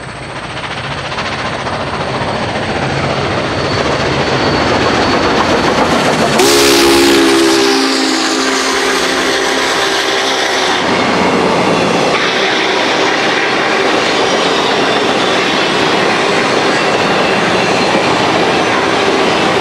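Union Pacific 844, a 4-8-4 steam locomotive, approaching and passing at speed, with the sound growing louder as it nears. As it comes alongside, about six seconds in, its chime steam whistle sounds for about four seconds. After that comes the steady rumble and clatter of the passenger cars rolling past.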